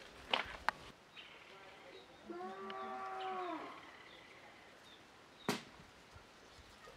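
A cow mooing once, a single call of about a second and a half whose pitch rises slightly and then falls away. Sharp knocks come near the start and again about two-thirds of the way through.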